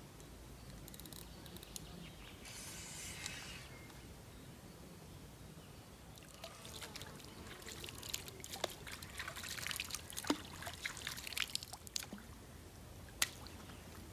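Water trickling and dripping: a short rush of water about three seconds in, then a scatter of sharp drips and splashes through the second half.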